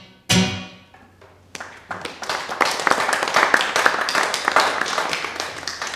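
A last chord strummed on an acoustic guitar, ringing out briefly, then audience applause from about a second and a half in.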